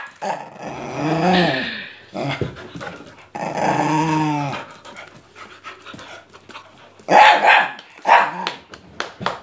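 Dogs vocalizing in rough play: two drawn-out growls that rise and fall in pitch, then a short burst of barks about seven seconds in.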